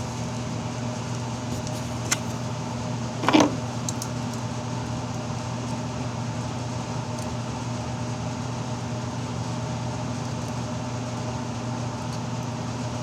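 Steady low mechanical hum of a running fan motor, with a sharp click about two seconds in and a brief knock or rustle about three seconds in.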